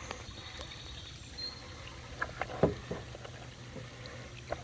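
Creek water trickling over a steady low hum, with a few light clicks and knocks, the sharpest about two and a half seconds in and another near the end.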